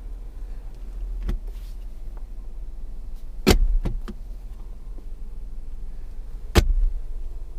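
Jeep Wrangler center-console armrest lid being unlatched and swung open: two sharp plastic clacks about three seconds apart, with a few lighter clicks, over a steady low rumble.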